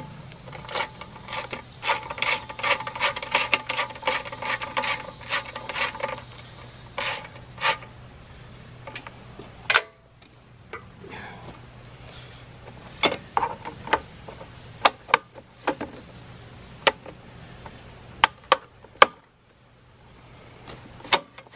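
Rapid ratchet-like metallic clicking for about six seconds, then scattered single clicks and knocks. The sounds come from parts of a small Briggs and Stratton engine being fitted and bolted back down.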